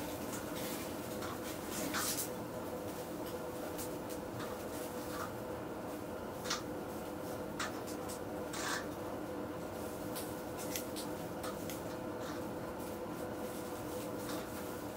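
Meat sizzling on a wire-mesh grill over a charcoal fire, with scattered sharp clicks from the crackling coals and the metal tongs on the grate, over a steady low hum.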